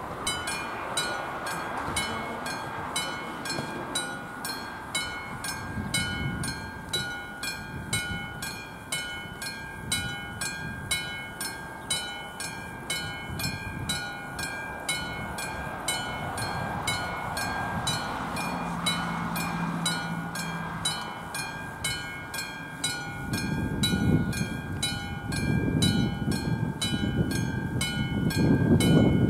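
Level-crossing warning bell, the classic striking bell of an AŽD 97 crossing, ringing steadily about twice a second. In the last few seconds a low rumble grows louder as a freight train approaches.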